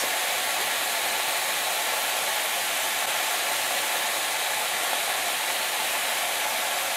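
Sliced leeks sizzling in hot oil in a stainless steel frying pan: a steady hiss.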